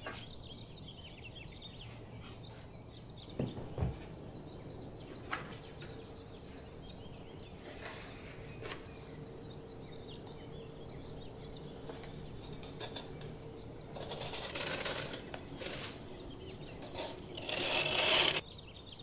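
Hands handling paper and books on a wooden desk: a couple of knocks about three to four seconds in, a few light taps, then rustling and scraping at the edge of a watercolour block, loudest near the end, over quiet room tone with a faint steady hum.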